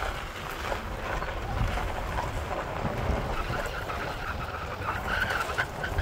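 A vehicle driving over a rough gravel and dirt road: steady tyre and road noise with small stones ticking, and wind rushing over the microphone.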